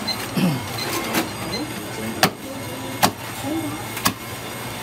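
Meat cleaver chopping through roast barbecue pork on a thick wooden chopping block: sharp single chops, about one a second.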